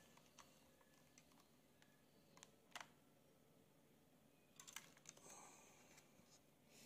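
Near silence with a few faint plastic clicks from an electronic hand dynamometer's handle being squeezed, a small cluster of them a little past halfway.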